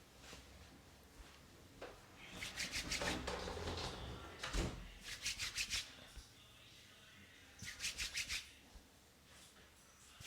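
Barber's scissors snipping in quick runs of five or six snips, three runs a couple of seconds apart, with a single low knock midway.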